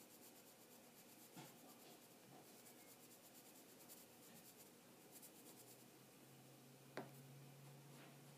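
Pencil graphite scratching on Bristol paper as an arm is shaded, in faint runs of quick back-and-forth strokes. One sharp click stands out about seven seconds in, and a faint low hum sets in over the second half.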